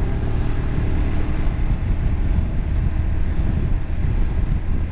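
Honda NC750S parallel-twin engine pulling hard as the motorcycle accelerates to overtake, its note fading after about a second and a half under heavy wind rumble on the microphone.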